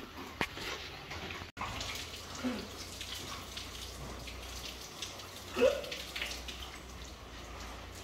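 Young pigs in a concrete pen: steady background noise with two short grunts, the louder one about halfway through.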